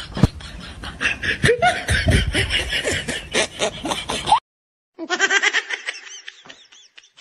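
Laughter in two stretches, broken by a sudden cut to dead silence for about half a second near the middle.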